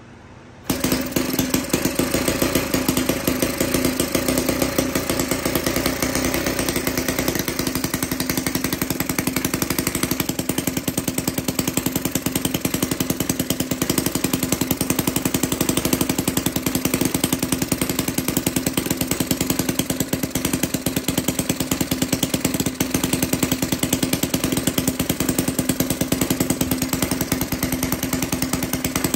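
A Musa Whippet 10cc four-stroke flathead miniature gasoline engine running loudly and steadily with a fast, even firing rhythm.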